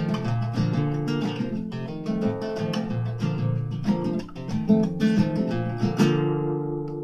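Nylon-string acoustic guitar played solo in a Hawaiian style, strummed chords mixed with picked notes. A last full strum about six seconds in is left to ring out.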